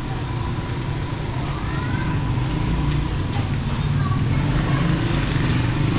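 Busy street ambience: motor vehicle engines running and passing, with people talking.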